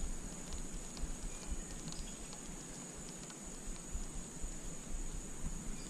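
Steady high-pitched drone of insects, with faint scattered ticks from a baitcaster reel being wound during a lure retrieve.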